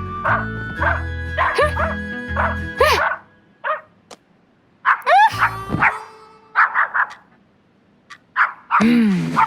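Background music that stops about three seconds in, then a cartoon dog barking in short, separate bursts with quiet gaps between them.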